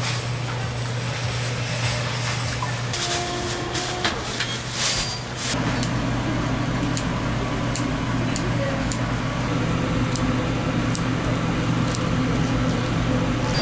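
Kitchen scissors snipping through sundae (Korean blood sausage), a sharp snip about once a second, over a steady low hum. A low rumble joins about five and a half seconds in.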